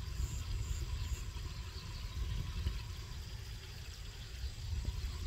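Low, gusting wind rumble on the microphone, with three faint short high chirps in the first second or so.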